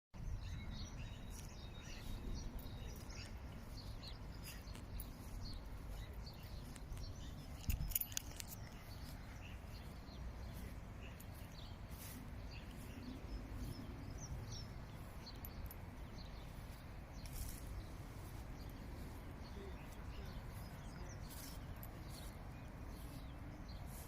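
Small birds chirping and singing in short scattered calls over a steady low rumble of background noise. A brief knock about 8 seconds in is the loudest sound.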